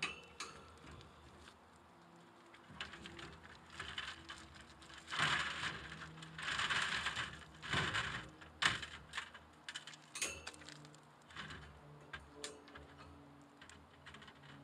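Quartz crystal pieces clicking and rattling against one another as they are handled in a mesh bag, with rustling of the bag. A louder spell of rattling comes in the middle.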